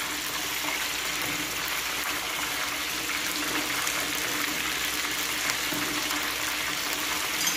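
Breaded chicken pieces deep-frying in a small pot of hot oil: a steady bubbling sizzle.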